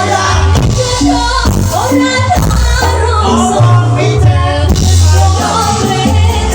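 Loud dangdut band music with a heavy bass line, drums and a melody, with a singing voice at times.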